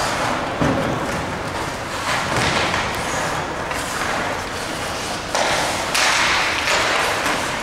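Ice hockey game sound: skates scraping on the ice with thuds and knocks of sticks, puck and boards, and a couple of louder rushes of noise about two-thirds of the way in.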